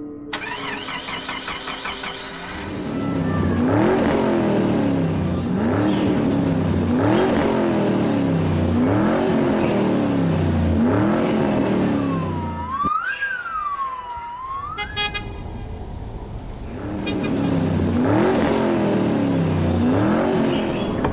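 A car engine revving in a run of quick rising sweeps, about one every second and a half. About halfway through, the revving drops away for a siren-like tone that wails up and down twice, and the revving returns near the end.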